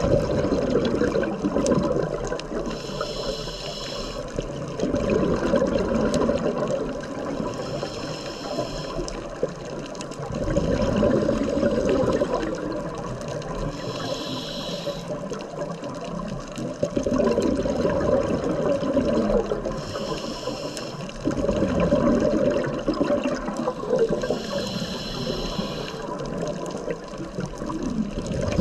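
Scuba diver breathing on a regulator underwater, five slow breaths: each a short, high hiss of the inhale through the second stage, then a rumbling burst of exhaled bubbles about two seconds long.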